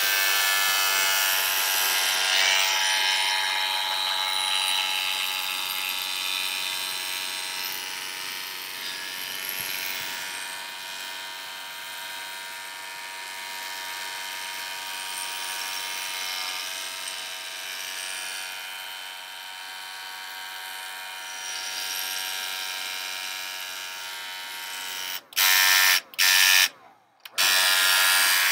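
Hand-held electric blow dryer running steadily, a motor hum under a rush of air, drying wet watercolour paint on paper. Its level rises and falls as it sweeps over the painting, and near the end it cuts in and out several times.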